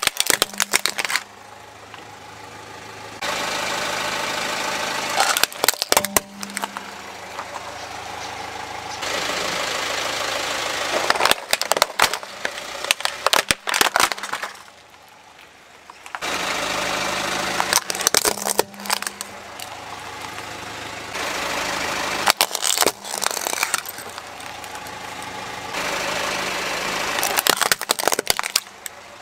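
Hard plastic toys cracking and snapping one after another as a car tyre rolls over and crushes them, with the car's engine running at a crawl between the crushes. There are several separate bursts of sharp cracks, a few seconds apart.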